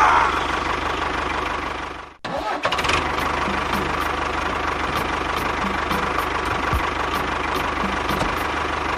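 A motor running steadily. It cuts out abruptly about two seconds in, then runs on, with a faint ticking about three times a second.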